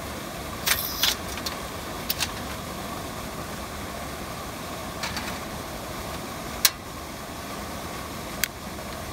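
Sharp metallic clicks and clatter from a portable butane camp stove: the gas canister is slotted in with a cluster of clacks about a second in, then single clicks follow near the end as a long lighter is worked at the burner. A steady rush runs underneath.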